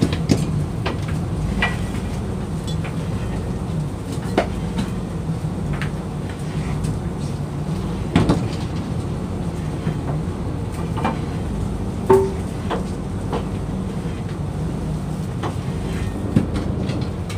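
Boat machinery and net-hauling rollers running with a steady low drone, with scattered knocks and clanks as a lobster net is hauled aboard. The loudest clank comes about twelve seconds in.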